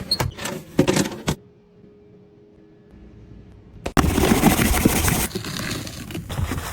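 Clicks and knocks of kitchen items and containers being handled, a short near-quiet pause, then from about four seconds in a loud, dense, rapid clatter of many small hard impacts.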